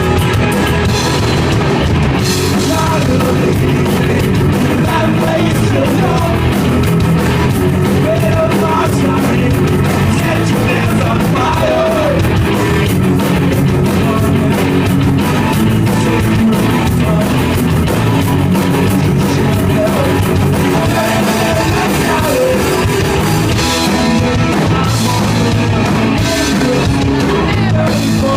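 Punk rock band playing live, loud and steady: drum kit, electric guitars and a singer.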